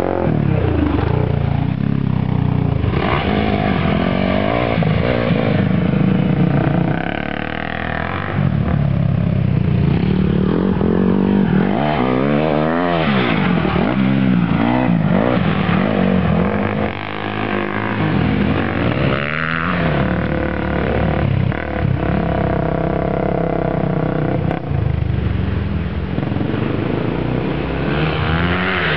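Dirt bike engines, a Honda CRF150R and a Honda 400R, revving up and down as they ride a motocross track, the pitch climbing and dropping again and again with gear changes. About halfway through, the pitch sweeps sharply up and down as a bike passes close by.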